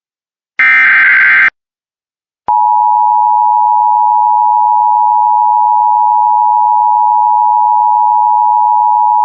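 Emergency Alert System broadcast: the last burst of the SAME digital header, a loud burst of rapid data tones about half a second in, ends after about a second. About a second later the steady EAS two-tone attention signal starts and holds unchanged.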